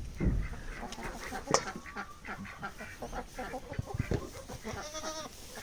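Farmyard fowl calling: many short, scattered honks and squawks from several birds, with a longer call about five seconds in.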